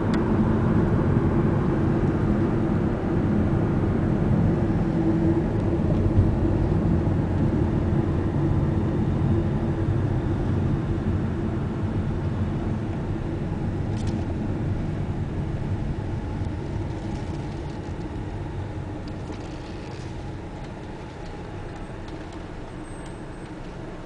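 Car cabin noise while driving: steady engine and tyre rumble heard from inside the car, growing quieter over the second half as the car slows on reaching the pier.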